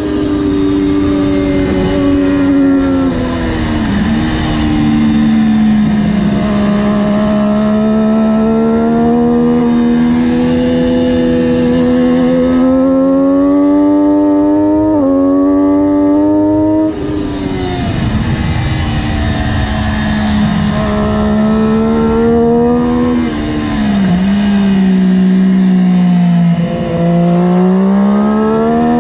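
Triumph Daytona 675R's inline three-cylinder engine running hard at high revs, heard from the bike itself. The engine pitch climbs and then drops sharply several times as gears change, with quick dips and rises near the end as the bike slows.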